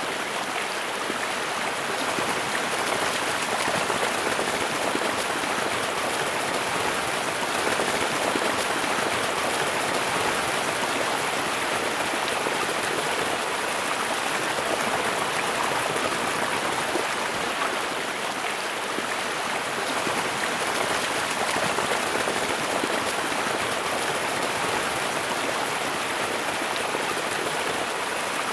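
Floodwater rushing steadily, a constant even rush of water with no breaks.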